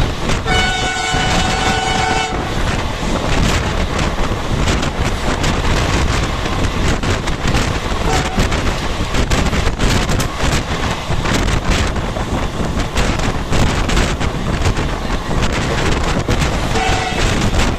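Passenger train running at speed behind a WDP3A diesel locomotive, heard from a coach: steady rumble and wind noise with rail clatter. The locomotive's horn sounds for about two seconds near the start and briefly again near the end.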